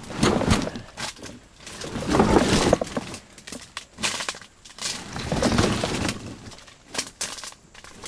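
Hollow Japanese knotweed stalks cracking and crunching, leaves rustling, as the stand is knocked down and trampled to clear a path. The noise comes in repeated bursts every second or two.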